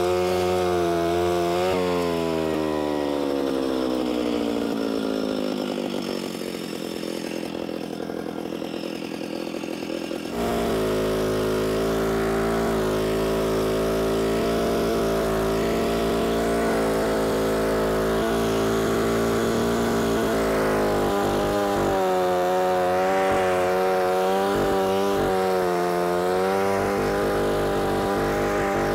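Alpine Magnum portable stump grinder's small petrol engine running hard as its trenching wheel cuts a narrow trench through turf. Its pitch sags over the first several seconds, then jumps abruptly back up about ten seconds in and runs steady and high, wavering slightly under the cutting load.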